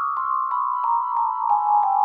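A slow descending run of struck notes on a mallet percussion instrument such as a xylophone or glockenspiel. Each note is a step lower than the one before, about three a second, and each rings on under the next.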